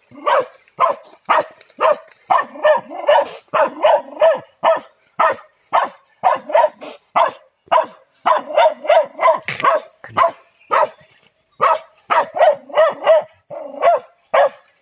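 Dog barking over and over, short sharp barks coming about two a second with brief pauses between runs.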